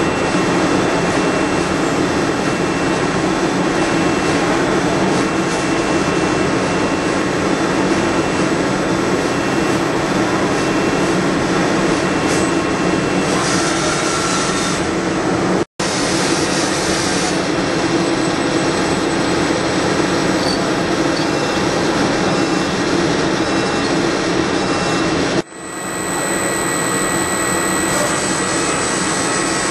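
A Fryer ET-21 CNC toolroom lathe running steadily while machining, with its spindle and tooling making a continuous loud noise under a low hum. The noise drops out abruptly twice, once about halfway and once near the end.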